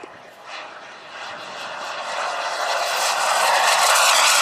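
Frank-Turbine 180 model jet turbine in a 1:3.5-scale BAE Hawk, its rushing jet noise growing steadily louder as the model closes in on a low pass, loudest near the end.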